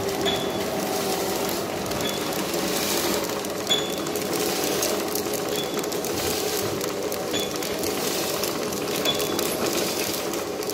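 Detergent powder pouch-packing machine (vertical form-fill-seal type) running: a steady mechanical hum with a short, high tick repeating about every two seconds as it cycles, and one sharper click a little before the middle.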